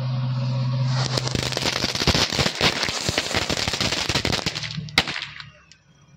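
Small paper-wrapped firecrackers, set off by a burning row of matches, go off in a fast crackle of many small pops and cracks for about four seconds, with one louder bang near the end before they stop.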